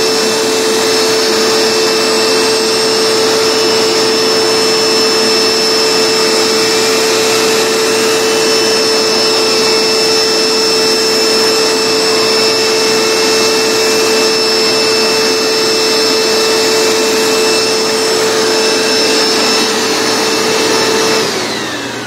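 Hoover Max Extract All-Terrain carpet cleaner running with a loud, steady motor whine as its motorised stair tool scrubs and sucks water out of the carpet. Near the end it is switched off and the whine drops away.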